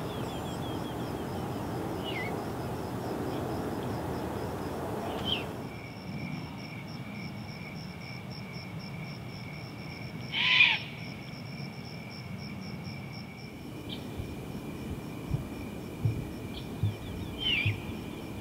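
Great horned owl calls, the loudest a single short, harsh call about ten seconds in, over a steady high-pitched pulsing trill in the background. The background sound changes abruptly about five seconds in.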